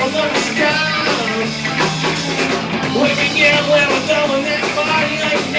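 A live rock band playing: electric guitars, bass guitar and drums, with a man singing into a microphone.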